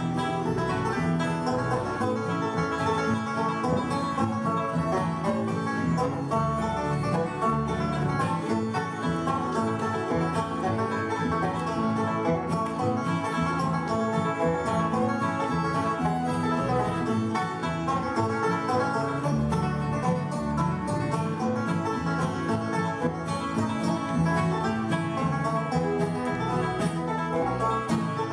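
Live bluegrass band playing a lively tune on five-string banjo, acoustic guitar and fiddle.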